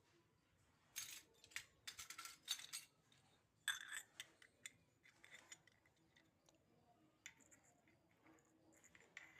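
Faint clicks and clinks of small hard miniature toy kitchen pieces being handled and set down, a quick flurry of them in the first half, then only a few scattered taps.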